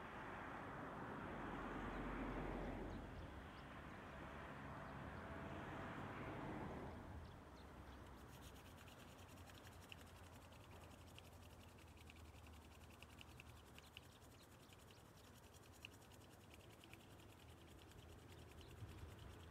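Faint outdoor ambience, close to silence: a soft rushing sound swells twice over the first several seconds and fades, leaving faint quick high ticking over a low steady hum.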